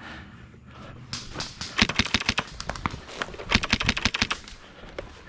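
Airsoft rifle firing in rapid bursts: a fast rattle of sharp shots, heaviest in two bursts in the middle.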